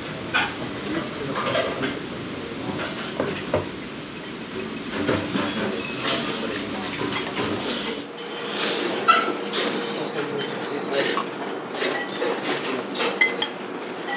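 Kitchen clatter of metal pans and utensils over a steady hiss. The low rumble drops out about eight seconds in, and after that the clinks and knocks come thicker.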